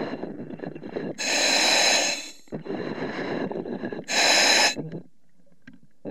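A diver breathing through an underwater breathing apparatus, heard through the diver's own microphone. There are two loud hissing breaths, about a second in and about four seconds in, with a rougher, lower rushing sound between them. It goes quiet about five seconds in.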